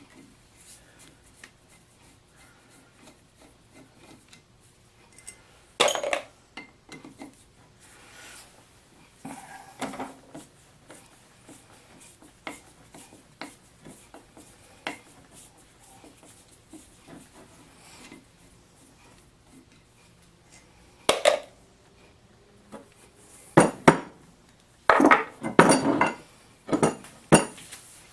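Metal parts of a Wilton bullet vise clinking and knocking as they are handled and set down during disassembly: scattered light clinks, a louder knock about six seconds in and another near twenty-one seconds, then a run of knocks near the end.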